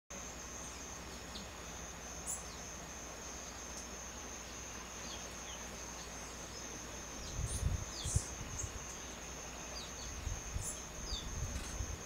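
An insect's steady, unbroken high-pitched trill, with scattered short bird chirps over it. Low thumps and rumbles come in from about seven seconds in.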